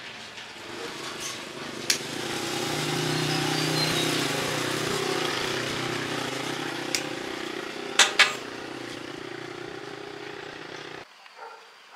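A motor vehicle's engine running, swelling to its loudest about four seconds in and then slowly easing off, with a few sharp clicks; it cuts off abruptly about a second before the end.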